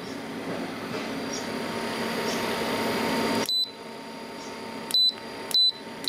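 Portable fridge's LG-badged compressor running with a steady hum that grows louder, then three short high beeps from the fridge's control panel as the compressor speed button is pressed. The hum is quieter after the first beep.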